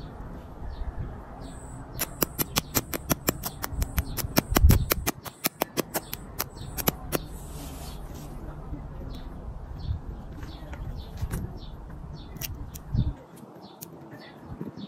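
A fast run of sharp clicks, about eight a second, starting about two seconds in and lasting several seconds, over a low rumble, with birds chirping.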